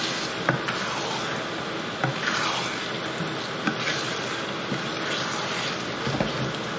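Chicken madras sauce sizzling in a non-stick frying pan while a wooden spatula stirs and scrapes through it, with a few light knocks of the spatula against the pan.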